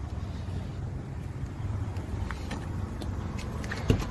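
Steady low rumble of a 1991 Nissan Vanette truck's engine idling, with a few footsteps on asphalt and one sharp knock about four seconds in.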